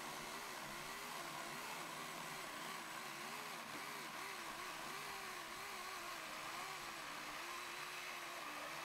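Husqvarna battery-powered chainsaw cutting through a stack of 4x4 lumber. Its motor pitch wavers up and down as the chain works through the wood, over a steady hiss.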